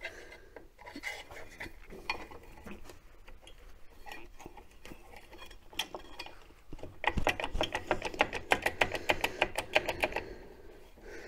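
A hand tool working a seized rear drum-brake adjuster on an MGB's backplate: scattered metallic clinks, then about three seconds of quick, rhythmic clicking near the end. The adjuster is stuck and will not turn.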